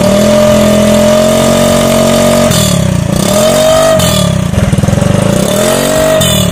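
Honda BeAT scooter's single-cylinder engine revving through a gutted MP7 'bobokan' aftermarket exhaust. It gives a long held rev, a short blip, then another rev before dropping back toward idle near the end.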